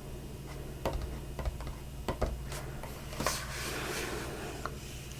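Scattered light clicks and taps from hands handling a book, with a soft paper rustle about three seconds in.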